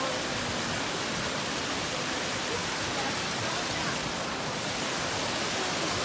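Small rocky cascade waterfall: water pouring and splashing down stepped rocks into a pool with a steady rush.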